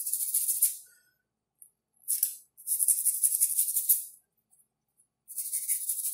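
Isopropyl alcohol spray hissing in short bursts of about a second each, four in all, one of them very short, as it is sprayed onto a PC memory module's contacts to clean off dirt.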